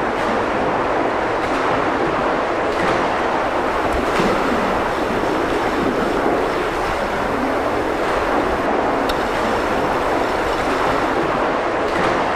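Underwater swimming-pool sound: a steady muffled rush of water, with faint clicks and splashes as a swimmer strokes along the surface overhead.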